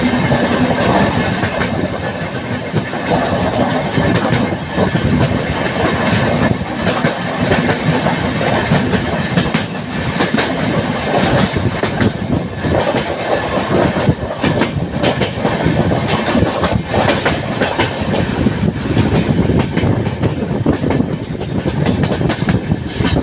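Two trains passing at speed, heard from the open doorway of a moving passenger train as a goods train of covered open wagons runs by on the next track: a steady loud rumble of steel wheels on rail with a rapid clickety-clack over the rail joints. The hiss of the passing wagons thins out near the end once the goods train has gone by.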